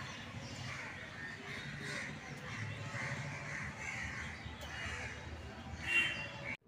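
Crows cawing again and again in short harsh calls over a low steady street hum, with one louder call near the end.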